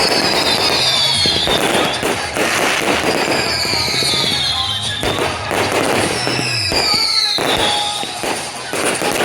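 Fireworks display going off in rapid succession: dense bangs and crackling, with three long falling whistles about two seconds each.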